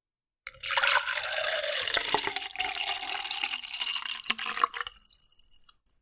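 Water poured into a glass: a steady splashing pour that starts about half a second in, its pitch rising slightly as the glass fills, then tails off into a few last drips near the end.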